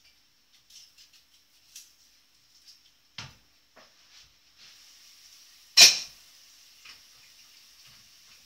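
Kitchen cooking sounds: small taps and clicks of work at the counter and a knock, then a steady sizzling hiss from a pan on the hob starting about halfway through. A single loud clatter of cookware comes shortly after the sizzling begins.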